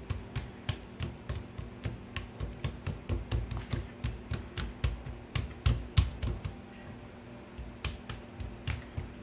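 Hands patting, pressing and stretching oily feteer dough on a work surface: a run of irregular soft taps and light thumps, about two or three a second, with a short lull near the end.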